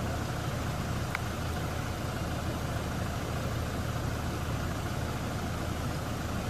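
Boat engine running steadily, a low even drone with no change in speed.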